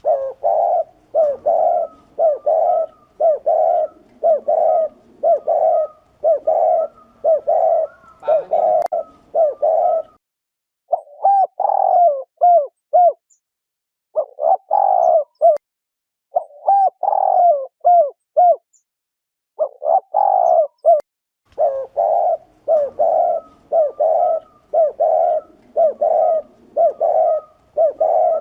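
Male spotted dove cooing: a fast run of short, even coos, about one and a half a second, broken in the middle by several slower multi-note phrases before the quick cooing resumes. This rapid 'gù' cooing is the courtship and territorial call used to stir up rival males.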